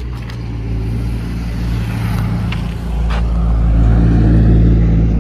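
Motor vehicle engine running close by with a steady low hum that grows louder about three seconds in, with a couple of light handling clicks.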